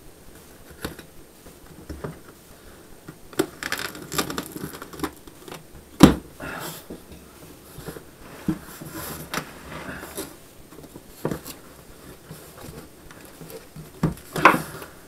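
Cardboard shipping box being opened: a utility knife slitting the packing tape, then the cardboard flaps pulled open and the box handled, with scattered rustles, scrapes and knocks. The sharpest knock comes about six seconds in, with another cluster of knocks near the end.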